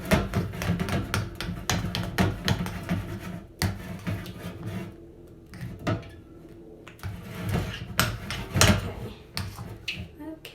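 Irregular knocks, clicks and rustles of things being handled close to the microphone.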